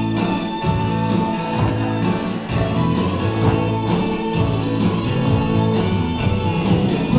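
Country line-dance music with guitars and a steady beat.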